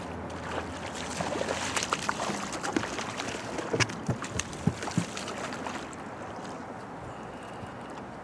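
A hooked bass being reeled to the boat and landed, with water sloshing and a string of sharp knocks and clicks between about one and five seconds in. Then a steadier, quieter wash of wind and water.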